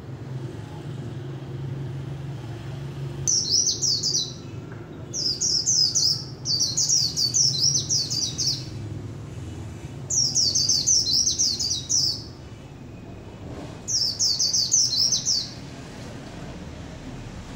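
Caged white-eye (khuyên) singing in five short bursts of rapid, high twittering notes, each lasting about one to two seconds, over a steady low background rumble.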